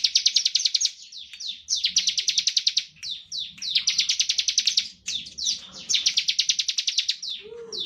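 Bar-winged prinia (ciblek) singing its 'ngebren' song: a rapid, high trill of about fifteen notes a second lasting about a second, repeated four times, with quick down-slurred notes between the trills.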